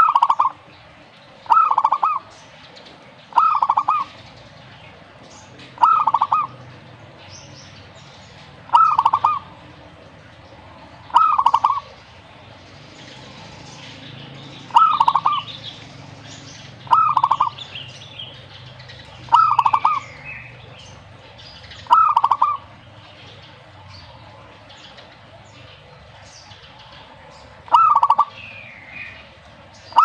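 Zebra dove (perkutut) cooing: a short, rapid trilled coo about half a second long, repeated every two to three seconds, with one longer pause near the end.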